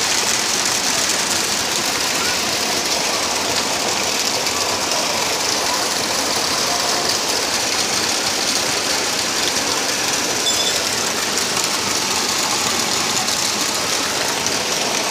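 Floodwater rushing steadily, an even hiss of moving water.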